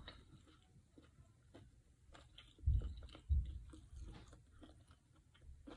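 Close-miked chewing of a mouthful of fried chicken: faint scattered mouth clicks, with two short dull low thumps about halfway through.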